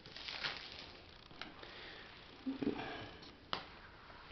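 Cardboard smartphone box being slid out of its sleeve: faint rustling and scraping of cardboard with a few light taps and clicks, the sharpest about three and a half seconds in.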